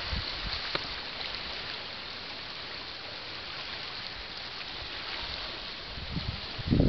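Steady hiss of sea waves washing against the rocks at the foot of the cliff, with a few low rumbles near the end.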